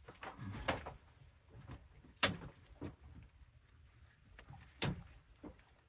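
Dry branches being handled and stacked: wood scraping and rustling, with sharp knocks of sticks against each other, the loudest a little over two seconds in and another near five seconds.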